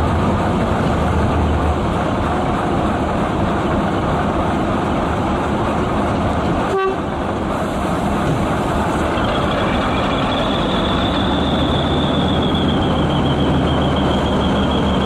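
MÁV Class M40 diesel switcher locomotive running up and passing close by, its diesel engine running loudly and steadily. From about two-thirds of the way in, a high, wavering squeal sounds over the engine.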